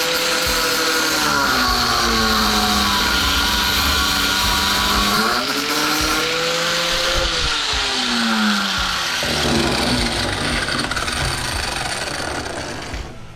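Electric power tool working metal, with a steady grinding and cutting noise. Its motor speeds up, holds, and winds down twice, then stops near the end. It is likely removing a steel piece riveted onto an aluminum stand.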